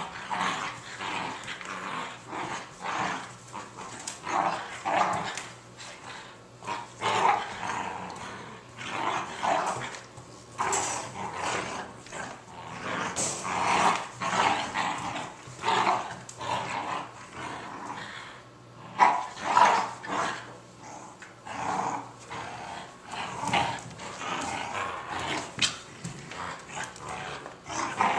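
Two Border Collie–Staffordshire terrier cross puppies play-growling in short, uneven bursts as they tug at a toy together. This is the growling of play tug-of-war, not aggression.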